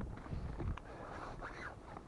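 Wind rumbling on the microphone and handling knocks as the camera is moved, with a short cry that rises and falls about a second and a half in.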